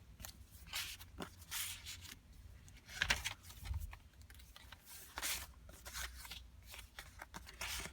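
Paper and card rustling and sliding as the pages, pockets and tags of a handmade journal are handled and turned, in short irregular scuffs, with a sharper knock about three seconds in.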